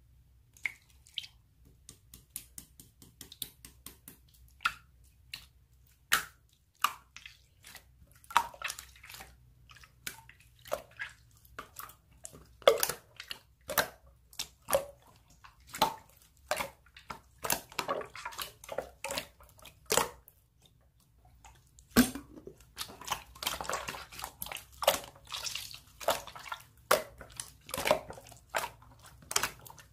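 Slime being squeezed and kneaded by hand, making a run of wet clicks and pops, sparse at first and coming thicker about halfway through.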